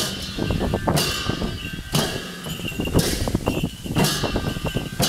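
Several chyabrung, the Kirati double-headed barrel drums, beaten together in a fast dance rhythm. A pair of hand cymbals clashes on the main beat about once a second, each clash ringing on briefly.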